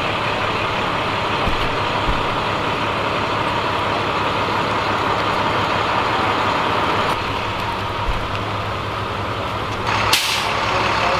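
Heavy vehicle engines idling steadily, a continuous low rumble and hum. About ten seconds in there is a short, loud hiss.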